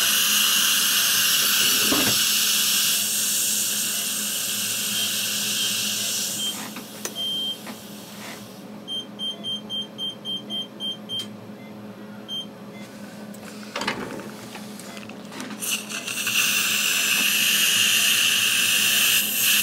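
Surgical implant motor and handpiece driving a dental implant into the jaw: a steady loud hissing whine that stops about six seconds in and starts again near the end. Between the two runs the motor unit beeps, first a few single tones and then a quick run of about eight short beeps. The beeping is typical of the motor's torque limit being reached, and the insertion torque is read as 50 N·cm.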